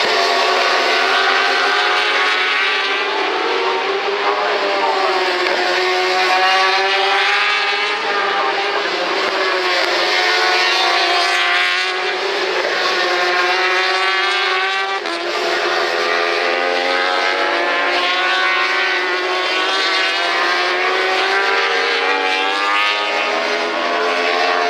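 Several 1000cc superbike racing engines pass one after another, their overlapping notes rising and falling in pitch as the riders accelerate and change gear.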